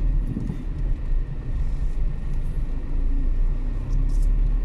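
Low, steady rumble of a car's engine and tyres as it drives slowly, heard from inside the cabin.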